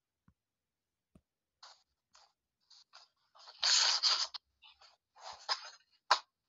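Drawing strokes scraping on a phone's touchscreen, picked up by the phone's own microphone: a run of short scrapes, the longest and loudest midway, then a sharp tick near the end.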